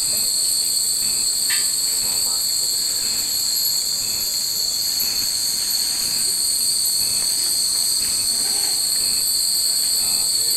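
Many Japanese fūrin wind chimes ringing with short high notes, over a steady high-pitched drone.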